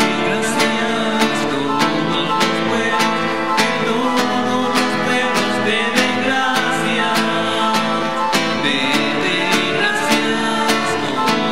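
Acoustic guitar strumming chords in a steady rhythm: the closing hymn after the dismissal of the Mass.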